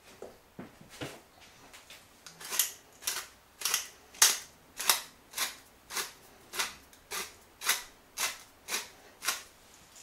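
Hand-twisted glass pepper mill grinding black peppercorns: a run of crunchy clicks, about two a second, one with each twist, after a few lighter clicks at the start.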